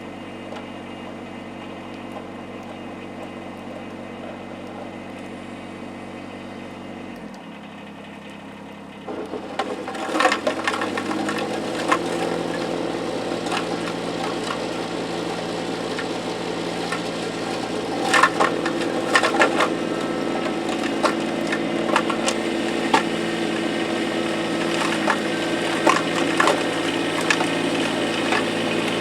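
Kubota compact tractor's diesel engine running at idle, then brought up to a higher, steady speed about ten seconds in. From then on, repeated crunching and cracking as packed snow and ice are broken up.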